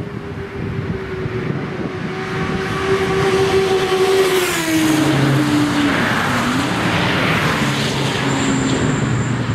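A motorcycle and a string of cars passing at speed on a race track: an engine note grows louder as they approach, drops in pitch as they go by about halfway through, and more engines follow close behind and fade away.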